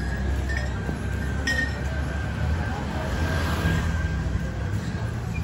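Pedestrian street ambience: a steady low rumble of city noise, with a sharp clink about one and a half seconds in and a brief rise in hiss a little past the middle.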